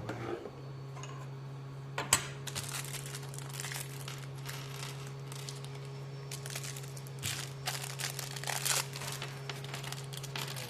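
Plastic packaging bags crinkling and rustling irregularly as drone frame parts are unpacked and handled, with a sharp click about two seconds in. A steady low hum runs underneath.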